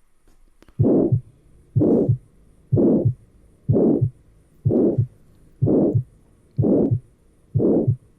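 Heart auscultation recording of a systolic ejection murmur: about one beat a second, each beat a rush that swells and fades (crescendo-decrescendo) between the first and second heart sounds. This murmur is typical of aortic or pulmonary valve stenosis and also occurs in hypertrophic cardiomyopathy. The beats start about a second in.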